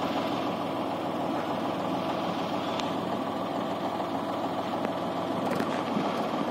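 Diesel engines of a combine harvester and a farm tractor running steadily, with a couple of faint clicks near the end.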